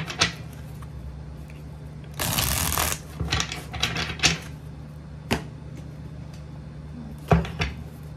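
A deck of tarot cards being shuffled by hand: a dense rush of sliding cards about two seconds in, then scattered card clicks and taps, with a sharp tap near the end. A low steady hum runs underneath.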